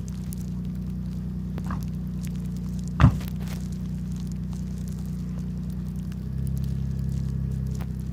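Nissan GT-R R35's twin-turbo V6 running at low revs with a steady low hum. A car door shuts with a single loud thump about three seconds in, and the engine note steps up a little about six seconds in.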